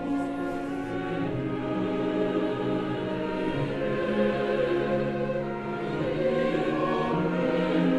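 Opera chorus singing long held chords with orchestra, the voices coming in at the start over the orchestra.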